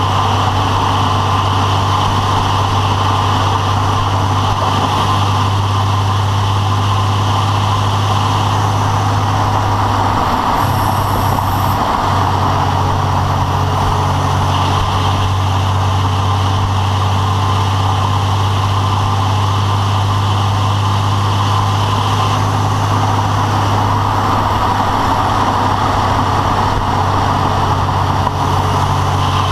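Recently rebuilt engine idling steadily with a rapid rattle, a noise that has appeared since the rebuild and whose cause is unknown.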